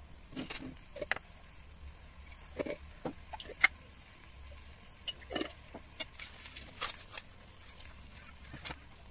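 Sporadic light clicks and knocks of kitchen utensils being handled around an electric rice cooker while sugar is added to the rice. The sharpest knock comes a little past the middle.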